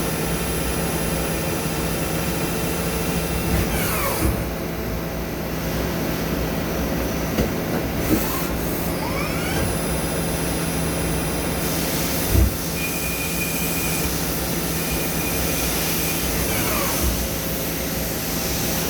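Machine tool running steadily while cutting beryllium copper: a constant hum with steady tones. Three brief falling whines come through, and there is a short knock about two-thirds of the way in.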